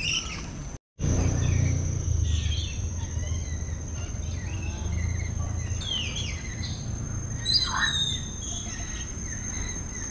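Many aviary birds chirping and calling over a steady, high-pitched insect-like drone, with one louder falling call a little past halfway. The sound cuts out for a moment just under a second in.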